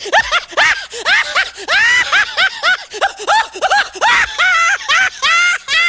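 Laughing-lion meme sound effect: a rapid run of short, high-pitched laughs, about three a second.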